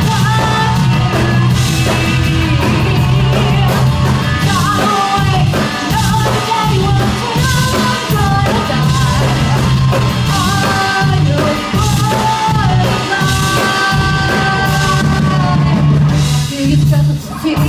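Live rock band playing a loud passage of a song, with drums, a heavy bass line and a bending melodic lead line over the top.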